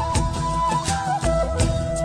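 Background music: a held melody line that steps between notes over bass and a drum beat.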